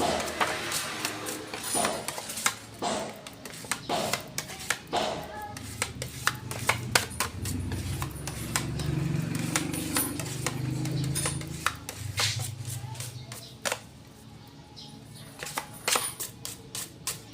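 Rapid, irregular sharp taps and clicks, with a low hum in the middle.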